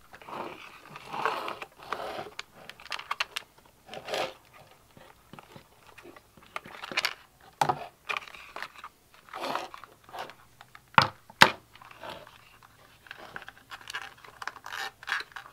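Hard plastic motorcycle fender and taillight parts being handled and pried apart: irregular crinkling, scraping and rustling with small clicks and knocks, and two sharp clicks a little past the middle.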